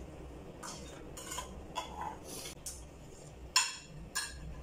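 Spoons clinking against plates as people eat, with plates being handled: a run of short clinks, the sharpest about three and a half seconds in, ringing briefly.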